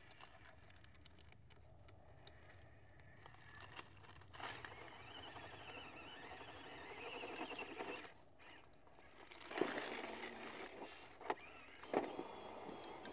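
Stock brushed electric motor and gear train of a 1/18-scale FMS FCX18 Hummer EV RC rock crawler whining as it crawls over rock. The whine starts about four seconds in, rises and falls with the throttle, breaks off briefly, then resumes, with a few sharp knocks of tyres or chassis against stone.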